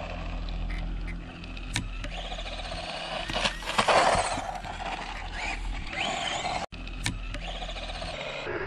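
Tamiya DT-01 buggy's silver-can brushed electric motor whining as it drives past on asphalt, with tyre noise, loudest about four seconds in. The sound cuts out for an instant about two-thirds of the way through.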